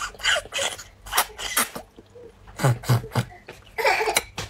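Close-miked mouth eating sounds: repeated sharp sucking and slurping bursts with wet lip smacks as food is sucked from a tube-shaped piece held at the lips.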